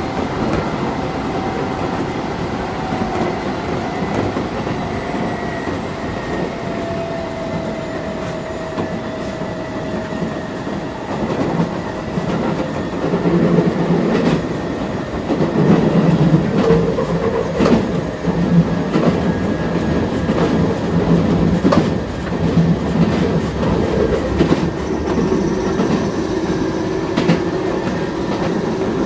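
Interior running sound of a Keisei 3400-series electric train car under way. A thin whine falls slowly in pitch over the first ten seconds or so. From about twelve seconds in the noise grows louder, with the uneven clatter of the wheels over rail joints and track.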